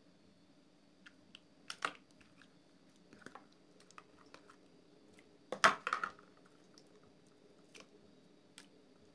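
Hands squeezing, stretching and peeling a clear soap-and-water slime, making scattered wet clicks and sticky pops. A louder cluster comes about two seconds in, and the loudest burst of pops a little past halfway.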